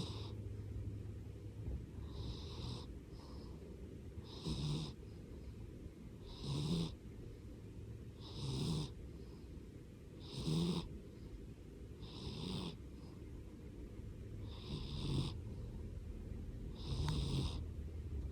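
A domestic cat snoring steadily, one snore about every two seconds, around nine in all.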